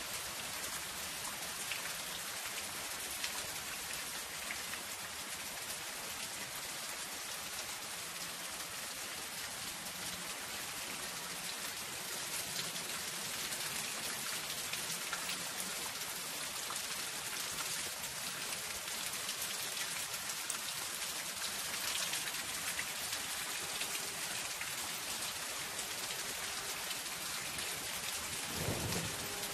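Soft rain falling steadily on a zinc roof, a dense patter of drops, with one brief low thump near the end.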